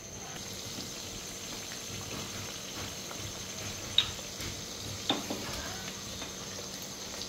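Sweet flour-and-jaggery tikkis sizzling steadily in a pan, with two light clicks about four and five seconds in.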